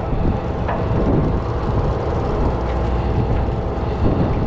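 Steady low rumbling drone of a party boat's machinery, with a faint steady hum over it and a couple of brief knocks.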